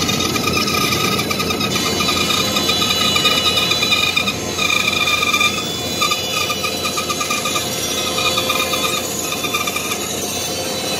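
Band saw running and cutting a curve through a thick wooden cutting-board blank to shape its handle: a steady blade-and-motor noise with a high, wavering whine as the blade bites into the wood.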